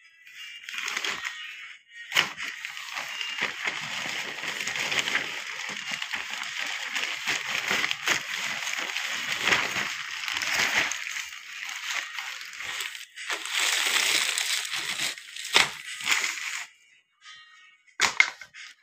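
Plastic courier mailer bags crinkling and rustling as they are handled and pulled apart, a long run of crackly noise with a few sharper crackles, stopping shortly before the end.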